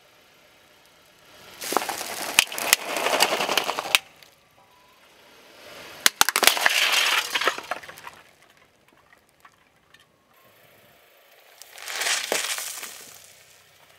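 A car tyre crushing a giant Chupa Chups lollipop, its plastic shell and candy cracking and crunching in two bursts of sharp cracks, then a bag of M&M's crunching under the tyre near the end.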